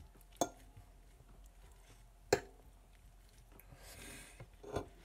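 Two sharp clicks of cutlery against a plate, about two seconds apart, then a brief soft rustle and a few small clicks near the end.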